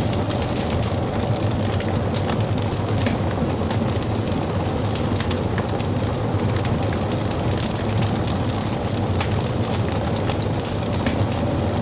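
Wood fire crackling, with frequent small sharp pops over a steady low rumble of the flames.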